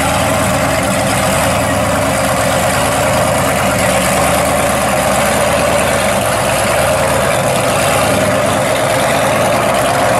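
Pontiac GTO muscle car on drag slicks, its engine idling steadily as the car creeps slowly forward.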